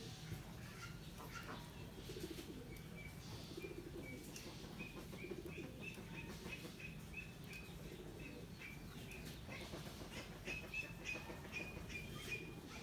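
Young poultry peeping: a steady series of short, high notes, about three a second, over a faint low background hiss.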